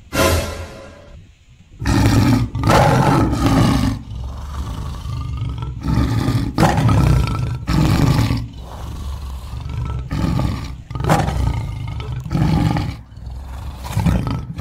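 Tiger roar sound effect: a brief roar at the start, then a long string of loud roars and growls one after another, dubbed over a stuffed toy tiger.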